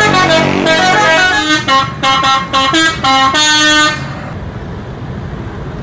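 A bus's multi-note musical air horn, of the Indonesian 'telolet' kind, plays a quick run of stepped notes. It stops about four seconds in, leaving a quieter rumble of engine and street noise.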